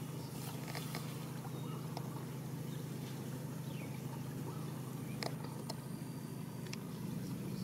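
Fish splashing and slapping in shallow muddy water, a few sharp splashes standing out, the loudest a little past five seconds in, over a steady low rumble.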